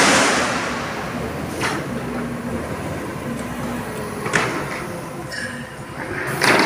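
Steady low machinery rumble at a construction site, broken by a few sharp metallic knocks, the loudest near the end, with a loud burst of rushing noise at the start.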